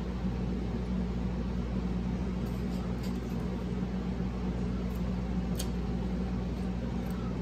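A steady low electrical or mechanical hum, like a fan or appliance running, with a few faint soft clicks from chewing crispy fried fish.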